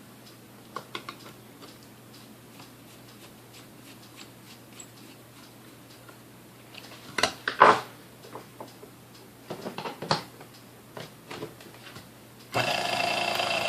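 Scattered clicks and knocks of the mixer being handled, then near the end the Sunbeam Mixmaster Model 12's motor is switched on and runs with a steady whirring hum, freshly serviced with its armature thrust spring and pin back in place.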